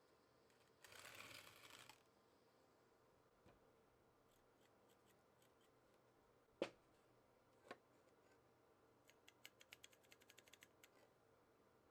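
Near silence, broken by a brief scrape about a second in, two sharp clicks in the middle, and a quick run of light ticks near the end.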